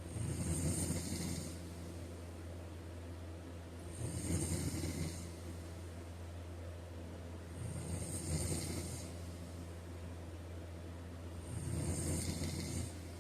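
A person snoring in slow, regular breaths: four snores about four seconds apart, each with a low rattle and a breathy hiss, over a steady low hum.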